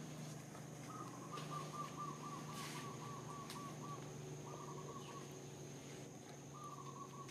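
A bird calling: a run of quick, evenly repeated notes lasting about three seconds, then two shorter runs, over a steady high-pitched drone.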